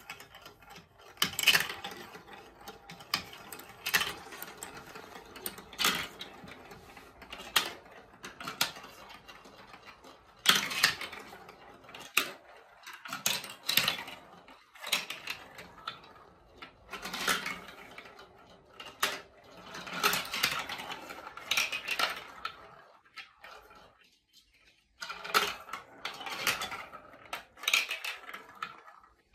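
Balls rolling and clattering through a plastic block marble run: a running rattle as they spin round funnels and along tubes, broken by many sharp clicks and knocks as they drop from piece to piece.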